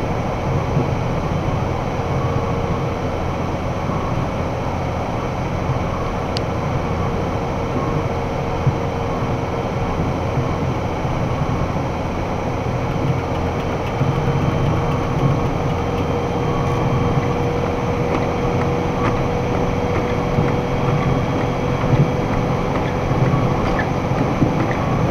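Box truck cab at highway speed, about 60 mph: steady engine, tyre and wind noise with a low rumble and a steady whine running through it.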